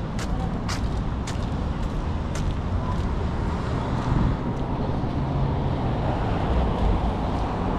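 City street traffic: a steady rumble of passing cars and engines that swells about halfway through. A few sharp ticks come in the first couple of seconds.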